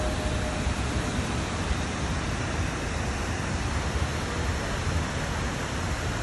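Man-made waterfall cascading over rock ledges into a lagoon: a steady rush of falling water, with a low rumble underneath.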